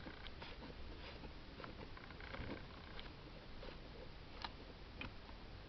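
Faint clicks and small mechanical handling noises from a Soviet FED rangefinder camera being worked by hand, with two sharper clicks about four and a half and five seconds in.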